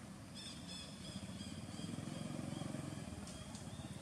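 A low engine rumble that swells through the middle, with a run of short, high chirps in the first half.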